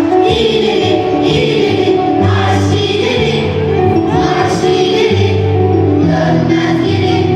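A choir of voices singing together over instrumental backing music with a steady bass line.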